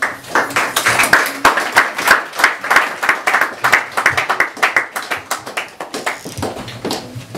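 Audience applause: many hands clapping at once, thinning out over the last two seconds.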